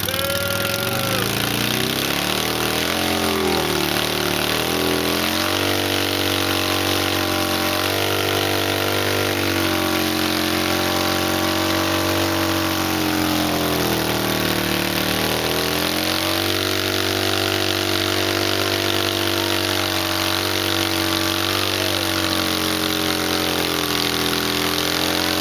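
Motorcycle doing a burnout: the engine is held at high revs while the rear tyre spins on the pavement. The revs climb over the first few seconds, sag briefly about halfway through, then climb again and hold steady.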